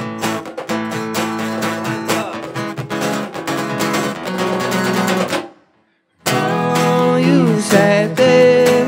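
Song with strummed acoustic guitar. The music drops out to silence for well under a second about five and a half seconds in, then starts again.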